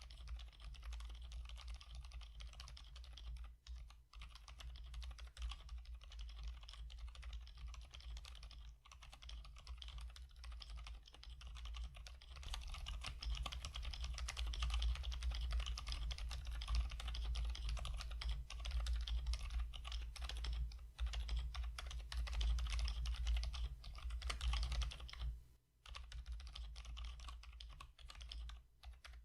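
Typing on a mechanical keyboard with Gazzew Boba U4T silent tactile switches (62 g, pearl top): quiet, dampened keystrokes in quick succession. The typing grows faster and louder about halfway through and stops briefly near the end.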